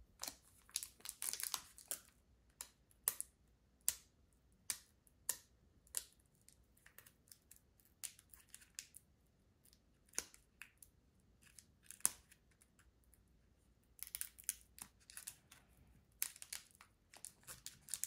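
Pokémon trading card booster packs and cards being handled: scattered sharp clicks and snaps of cards, with a foil booster wrapper crinkling and tearing in denser stretches near the end.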